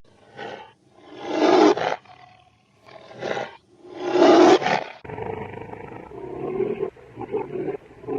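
A big cat roaring in four loud bursts, then, after an abrupt cut about five seconds in, a steadier, lower rough growling sound.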